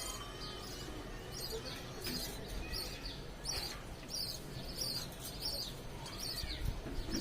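A parrot chirping: a steady run of short, high chirps, each sliding down in pitch, about one to two a second.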